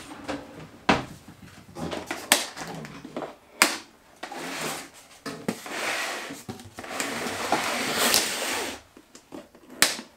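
Cardboard packaging scraping and rustling as the box insert is pulled open, with a few sharp snaps and clicks between.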